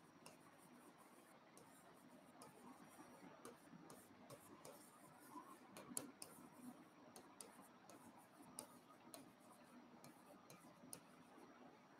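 Faint taps and scratches of a stylus writing on an interactive display screen, a run of light irregular clicks.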